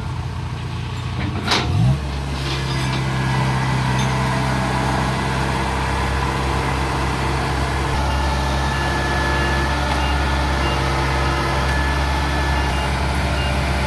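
Kubota DC70 Plus combine harvester's diesel engine running. About one and a half seconds in there is a sharp knock, then the engine revs up and holds steady at the higher speed.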